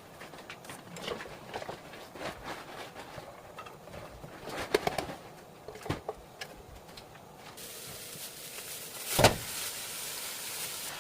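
Knife chopping onion on a cutting board, a series of irregular knocks. About two thirds of the way through, a steady frying sizzle starts suddenly, with one loud knock a little later.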